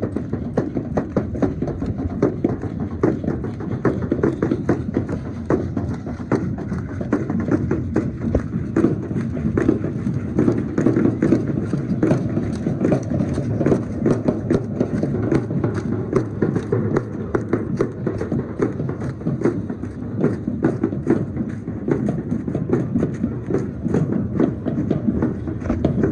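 Matachines dance troupe processing: a hand-held drum beaten with a stick in a quick, steady beat over the dancers' rhythmic stamping footsteps, many short taps running together.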